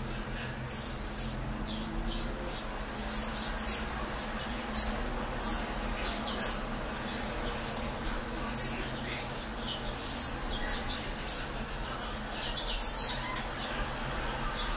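Caged grey singer and serin finches giving short, high chirps, scattered irregularly at about one or two a second and sometimes in quick pairs, over a faint steady hum.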